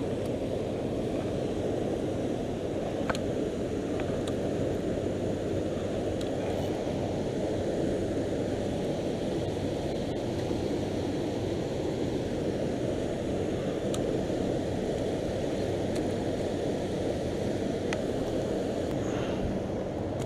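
Steady rush of turbulent water churning below a dam, with a few faint, sharp clicks over it.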